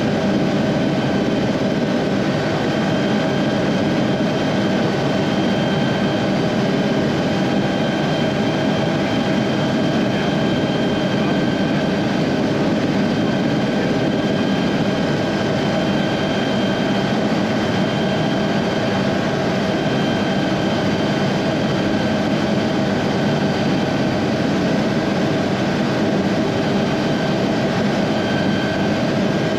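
SA315B Lama helicopter in cruise flight, heard from inside the cockpit: the steady high whine of its Turbomeca Artouste turboshaft over a constant drone of rotor and airflow noise.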